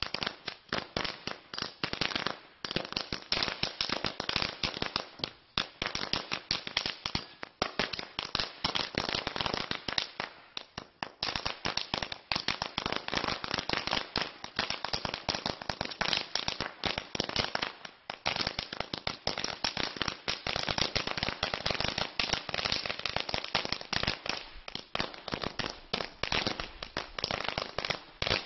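Blackboxx Rapiator firecracker chain going off: a rapid, unbroken string of small sharp bangs that starts suddenly and runs on with only a few brief dips.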